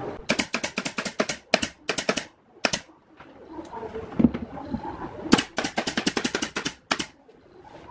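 Pneumatic nail gun firing fasteners into plywood panels in quick succession. There are two rapid runs of sharp shots, several a second, separated by a pause of about two and a half seconds.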